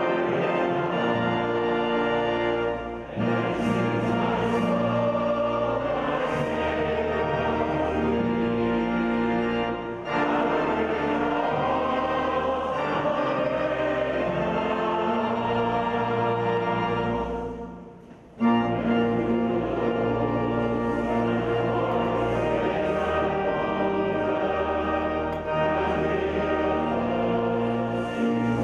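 Congregation singing a hymn together with organ accompaniment in a large cathedral. The singing and organ break off briefly about two-thirds of the way through, then resume.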